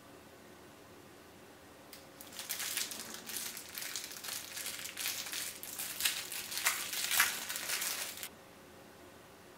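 Thin clear plastic wrapper crinkling as it is pulled off a small mochi squishy toy by hand. It starts about two seconds in, comes in irregular louder crackles, and stops abruptly about a second before the end.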